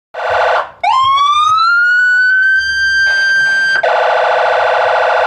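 Electronic siren sounding loudly. A short harsh burst comes first, then a tone sweeps upward and holds steady for about three seconds, then it switches abruptly to a rapid, harsh pulsing tone.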